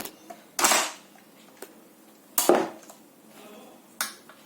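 Three sharp bangs, roughly one and a half to two seconds apart, each dying away quickly.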